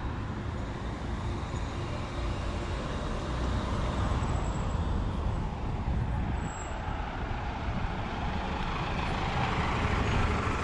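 Street traffic: cars passing on a city road as a steady rumble, with a bus passing close by and growing louder near the end.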